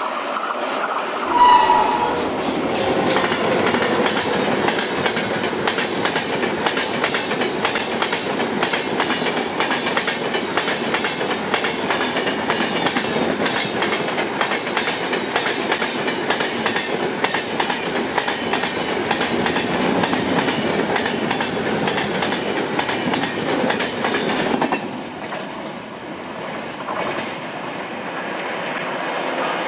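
Indian Railways WAP7 electric locomotive gives a short horn blast as it comes close, then its LHB passenger coaches clatter past at speed, wheels knocking rapidly on the rails. About 25 seconds in, the last coach goes by and the clatter drops to a quieter rumble as the train moves away.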